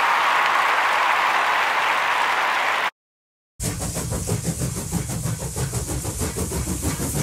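A steady rushing noise for about three seconds, then a brief dead-silent gap, then the low rumble of a car's engine and road noise heard from inside the cabin.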